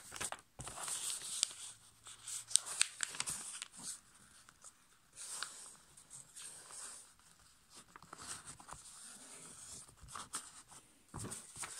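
A sheet of copy paper being folded and creased by hand on a tabletop: irregular rustling and crinkling with sharp little ticks as fingers press and slide along the folds, and a dull bump near the end.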